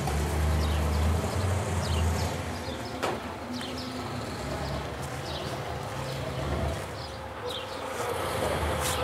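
A vehicle engine running low and steady, loudest in the first couple of seconds and then easing off, with short high chirps scattered through.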